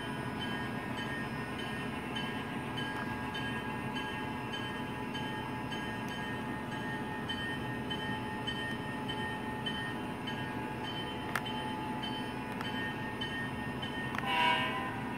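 Model train running on its track: the Alco diesel locomotive's MTH Proto-Sound 2 engine sound over the hum of the motors and wheels, with a regular ticking. A single sharp click about eleven seconds in, and a short horn blast near the end, the loudest sound in the stretch.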